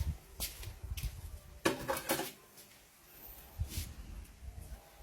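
A few short knocks and clunks of a cordless drill being handled and set down on a scale, the loudest about two seconds in.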